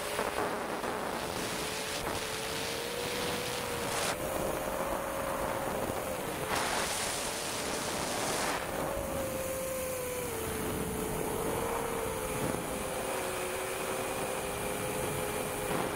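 Electric motors and propellers of a long-range FPV quadcopter in flight, heard from its onboard camera: a steady hum at two close pitches that drift slowly up and down, over a rush of wind noise that swells briefly twice.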